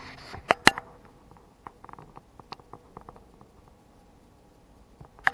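Handling noise from a hand at the camera: two sharp clicks about half a second in, then a scatter of light taps and scratches that fade out, and a short loud noise at the very end.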